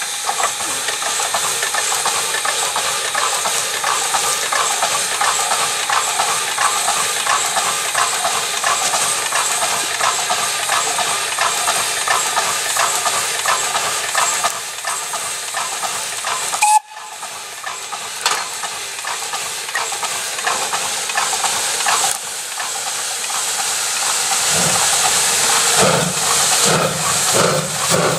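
A Ty2 class 2-10-0 steam locomotive working a passenger train past at close range, with a steady hiss of escaping steam over the beat of its exhaust. The beats grow heavier and more distinct near the end as the engine comes level. The sound briefly cuts out about two-thirds of the way through.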